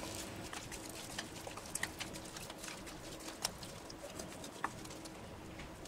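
Spoon stirring raw mango pieces in spiced mustard oil in a glass bowl: faint wet stirring with scattered light clicks of the spoon against the glass.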